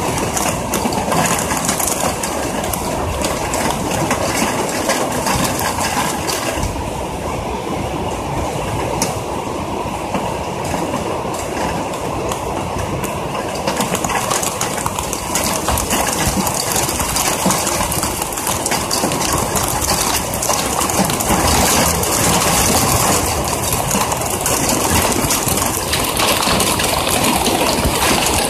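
Heavy rain drumming on the window ledge and on the phone recording it: a dense, steady patter of drops.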